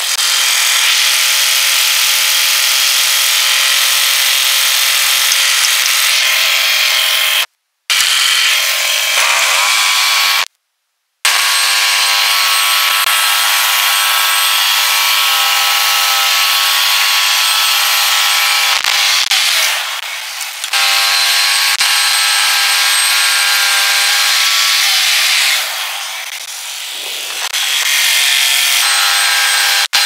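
Norwood LumberPro HD36 portable band sawmill running, its engine-driven band blade sawing lengthwise through a log. It is a loud, steady, whining drone that cuts out twice, briefly, in the first half.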